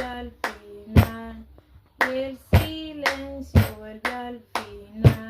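A woman singing short held notes over a rhythm of body-percussion hits: sharp claps or slaps about every half second, with a louder stroke roughly once a second.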